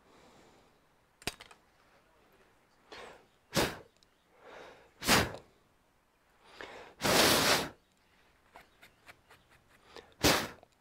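Short hissing bursts of blown air, about six of them spaced over ten seconds, the longest lasting under a second about seven seconds in, then a few faint small clicks near the end.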